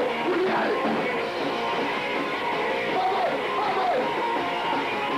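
Hardcore punk band playing live: electric guitar driving a fast song, with the singer yelling into the microphone.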